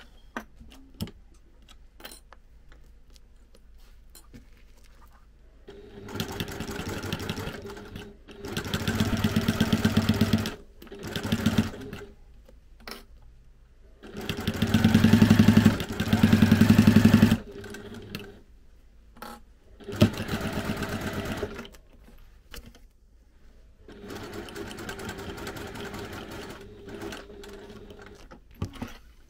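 Domestic electric sewing machine stitching through clear vinyl and fabric in a series of short runs, stopping and starting several times, with small clicks in the pauses. The longest and loudest run comes about halfway through. This is a basting line sewn around the edge to hold the vinyl in place.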